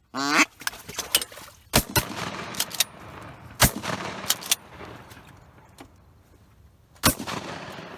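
Shotguns firing at ducks: three loud shots, about 2 and 3 seconds apart, with several fainter shots in between. A short falling quack sounds right at the start.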